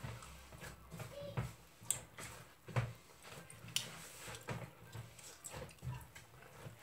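Hands kneading soft, oiled yeast dough in a plastic bowl: irregular dull thumps and wet squelches as the dough is pushed and pressed, about one every half second to a second.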